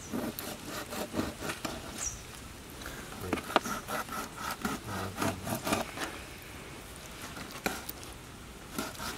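Kitchen knife sawing through the skin and flesh of a large fish, scoring its side in short back-and-forth strokes at about four a second, with a few sharp clicks; the strokes thin out for the last few seconds.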